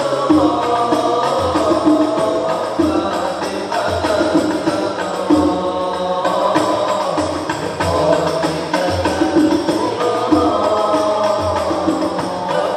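Hadrah al-Banjari group: male voices singing an Arabic sholawat in unison into microphones, over low frame-drum strokes roughly once a second.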